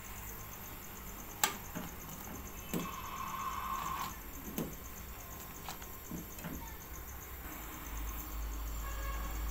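A metal ladle and spoon clinking against an aluminium saucepan as tea is stirred on a gas stove: about half a dozen sharp, separate clinks over a steady low hum.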